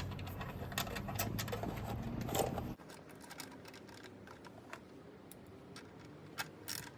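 Scattered light clicks and taps of small parts being handled while the heater's over-temperature reset switch is refitted, with a quick cluster of clicks near the end. A low steady hum underneath stops abruptly about three seconds in.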